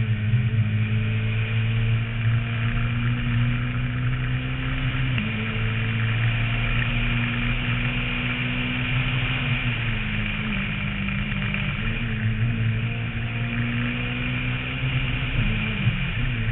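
Renault Mégane rally car's engine pulling hard at speed. Its note climbs slowly, then shifts pitch suddenly at gear changes: down about five and ten seconds in, up briefly near twelve, and down again near fifteen. Wind hiss on the roof-mounted camera runs under it.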